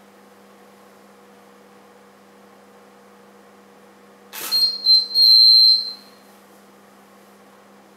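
A camera shutter click as a test shot fires the studio strobes. Straight after come high beeps from the flash heads, a few short ones and then a longer one, signalling that they have recycled and are ready. A steady low hum runs underneath.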